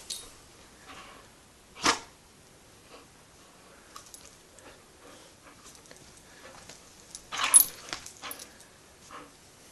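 A dog playing tug with a rope toy: scattered short dog sounds and scuffles, with a sharp one about two seconds in and a louder burst about seven and a half seconds in.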